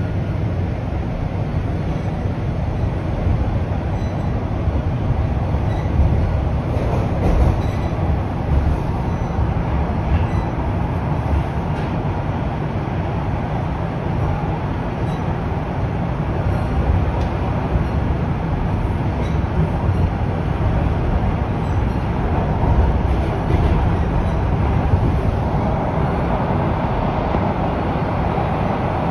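Inside a Toronto Rocket subway car on TTC Line 1: the train's steady low rumble of wheels on rail and running gear, swelling a little now and then.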